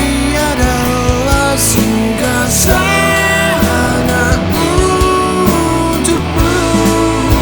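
Rock music: a lead guitar plays sustained notes that bend and glide in pitch, over drums and bass.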